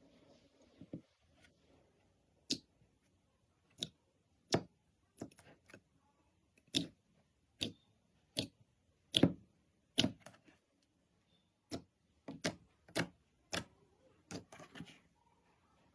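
Slime being handled, giving sharp, irregularly spaced popping clicks, roughly one a second, as air pockets in it snap.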